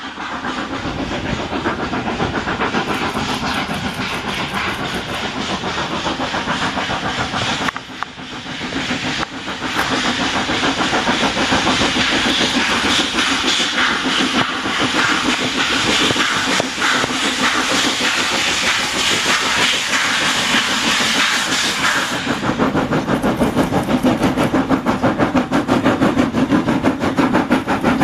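Steam locomotive hauling a train up a grade, its exhaust beating fast and hard. A loud steam hiss runs over the beat from about ten seconds in, then stops about twenty-two seconds in, leaving the chuffing louder and clearer as the engine comes close.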